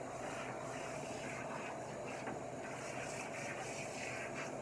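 Handheld shower sprayer running steadily, its water spraying onto a wet dog's coat in a bathtub.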